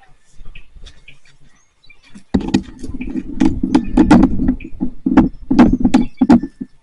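Freshly lit fatwood fire crackling, turning loud from about two seconds in with irregular sharp pops and cracks.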